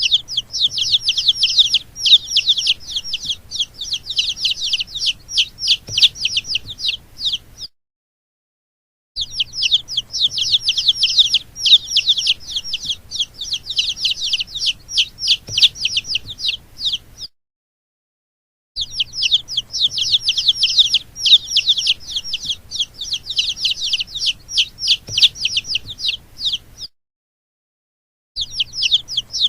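Baby chicks peeping: rapid, high-pitched downward cheeps, several a second, in stretches of about eight seconds that cut off abruptly into a second and a half of silence, three times.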